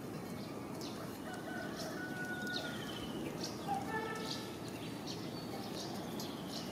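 Scattered animal calls: many short high chirps and squeaks, with one longer held call about two seconds in and a couple of louder calls near the middle.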